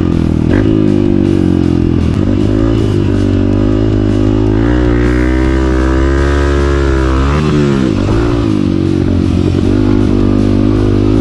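Honda CRF250F's single-cylinder four-stroke engine revving up and down as the throttle opens and closes on a motocross track, its pitch climbing and dropping several times, with background music mixed under it.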